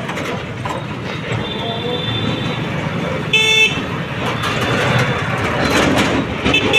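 Busy street traffic noise with a steady low rumble and one short vehicle horn toot about halfway through.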